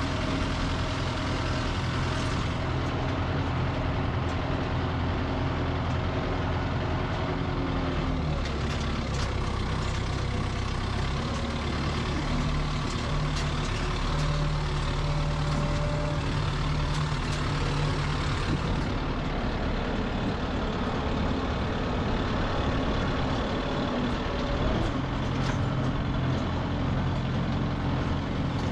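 Diesel tractor engine running steadily, its pitch shifting a few times as the engine speed changes.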